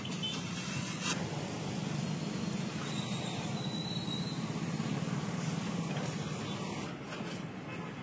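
Steady street traffic noise with a low engine hum. One sharp knock sounds about a second in.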